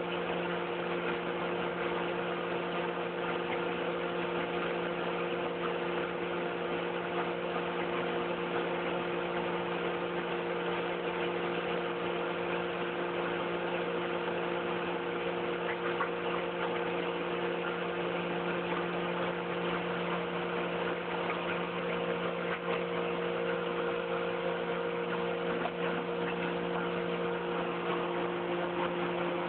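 Steady drone of drilling rig machinery: several held humming tones over a hiss, with a few faint ticks, unchanging throughout.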